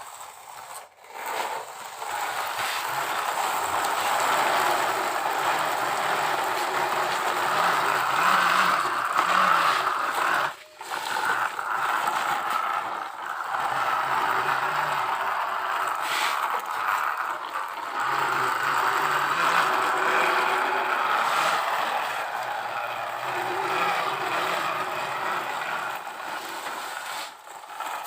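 Toy trucks and a toy excavator scraping and rattling: a steady mechanical noise that breaks off briefly about ten seconds in and again near the end.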